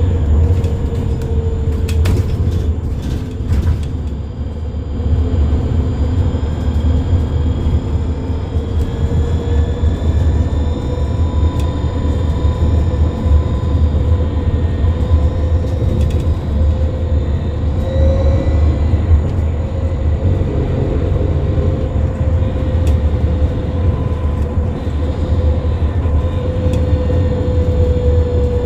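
Volvo 7900 Electric bus's electric drive motor running, a steady whine whose pitch drifts slowly up and down with speed, over a heavy low road rumble. A few faint clicks come about two to four seconds in.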